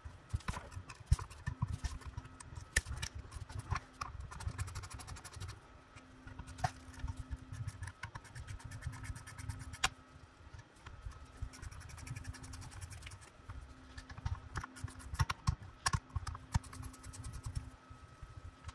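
Irregular small metallic clicks, clinks and scrapes of hand tools working the five 10 mm bolts out of the intake piston cover on a BMW E46 VANOS unit, with quick runs of clicks here and there.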